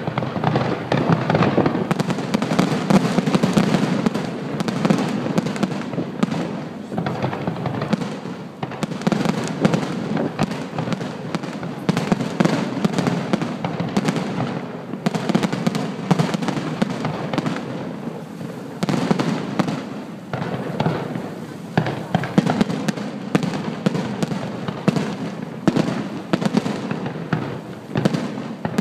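Aerial fireworks shells bursting in rapid succession: a dense, continuous barrage of booms and crackling.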